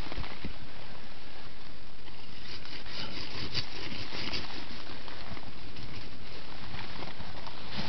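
Snow scraping and crunching as the igloo's last key block is pushed up and worked into the roof opening, rubbing against the neighbouring blocks in irregular scrapes that come thickest near the middle.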